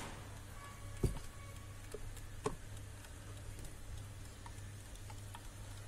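Diamond Round Star mechanical alarm clock ticking faintly, with two louder knocks about one and two and a half seconds in as the clock is handled and turned over.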